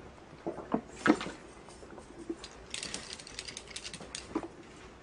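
A person drinking water from a plastic bottle: a few gulps and knocks in the first second and a half, then about a second of crackling near the middle.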